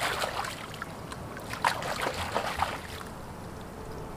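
Water splashing and sloshing as mud crabs are rinsed by hand, with a couple of sharper splashes at about one and a half and two and a half seconds in.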